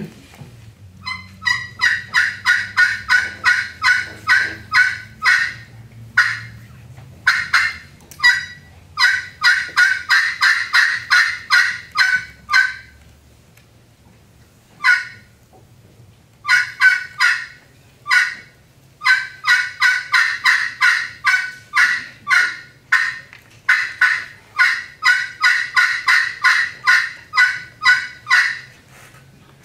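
Hand-played friction turkey call imitating a hen turkey's plain yelp: strings of short, evenly spaced yelps, about three a second, broken by short pauses, with a single lone yelp near the middle.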